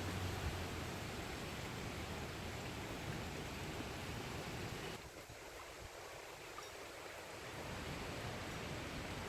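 Wind blowing across the microphone: a steady rushing noise with a low rumble, easing off for a couple of seconds about halfway through before picking up again.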